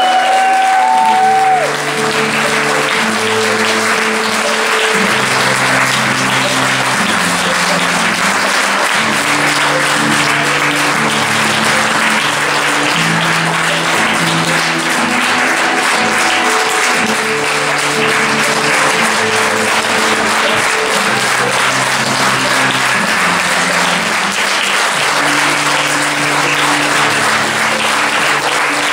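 Audience clapping steadily and heavily, over slow music with long held low notes that change every second or two.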